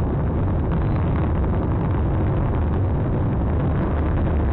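Kuaizhou 1A rocket's solid-fuel first-stage motor firing at liftoff: a steady, deep rumbling noise.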